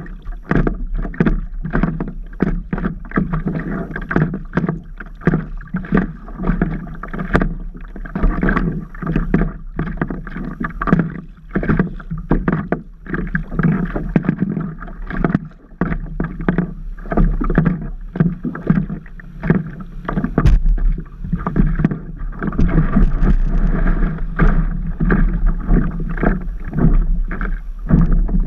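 Water slapping and splashing against a stand-up paddleboard, heard close up from the board's deck as a dense, irregular run of short splashes with a low steady rumble underneath.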